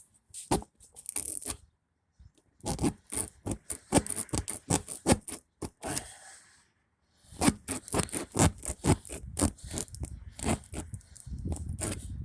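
Tire reamer (rasp tool from a plug kit) scraping in and out of a puncture in a tire in quick repeated strokes, cleaning out the hole for a plug. The rasping stops briefly about two seconds in and again around seven seconds in.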